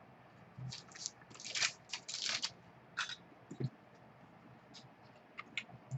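Trading cards and their wrapping being handled by hand: a run of crinkling, rustling strokes over the first two and a half seconds, a soft knock about three and a half seconds in, then a few faint clicks.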